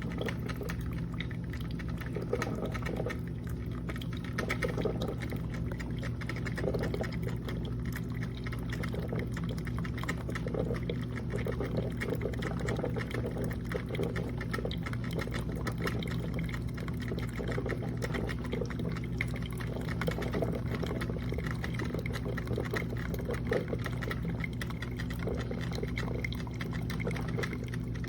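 Black+Decker single-serve coffee maker brewing: water gurgling and sputtering through it over a steady low hum.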